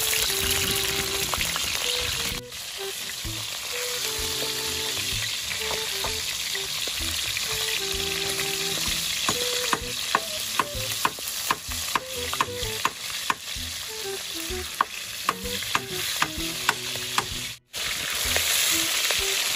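Puffer fish pieces frying in hot oil in a steel wok, a steady sizzle. From about halfway through, a metal spatula turning the fish clicks against the wok many times in quick succession.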